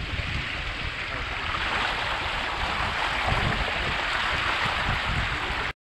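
Water rushing and splashing along the hulls of a Strike 20 trimaran under sail, with wind buffeting the microphone. The sound cuts off suddenly near the end.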